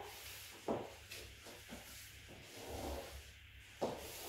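Faint dance-shoe footsteps on a wooden floor as a tango couple steps through a giro: a few soft taps, two louder ones about a second in and near the end, with a brief scuffing rub between them.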